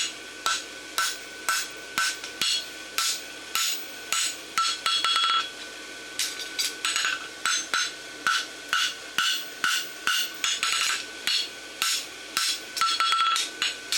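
Hand hammer striking steel bar stock on an anvil in a steady rhythm of about two blows a second, each blow ringing.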